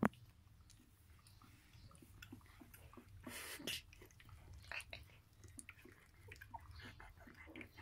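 Faint smacking, snuffling and small wet clicks of 17-day-old kelpie puppies mouthing and chewing at each other. There is a sharp click right at the start and a brief rustle about three seconds in.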